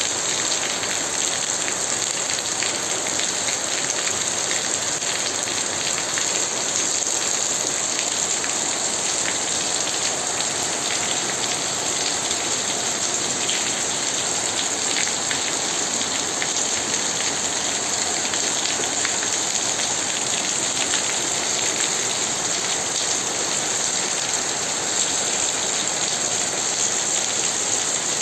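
Steady rain falling, with many fine drop patters hitting surfaces.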